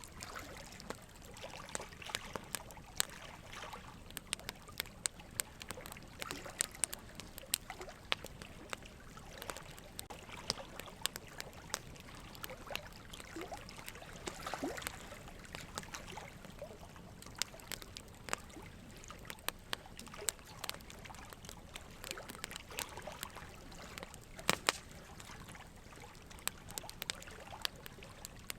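Steady ambient water sound, trickling and lapping, with many small irregular splashes and clicks throughout.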